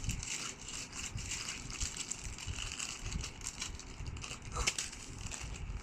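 Plastic packaging rustling and crinkling as the box contents are handled, with a sharper click about four and a half seconds in.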